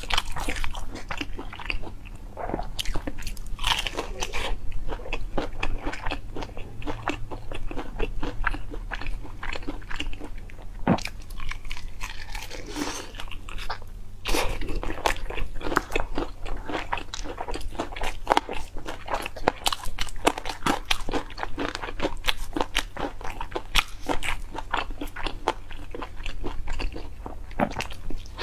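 Close-miked crunching and chewing of sauce-coated fried chicken: the crisp breading gives a dense, continuous run of sharp crackles between bites.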